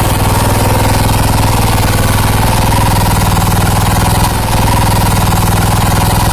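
Kubota KG55 5.5 hp four-stroke, single-cylinder 171 cc gasoline engine running steadily, with an even, rapid beat of firing pulses.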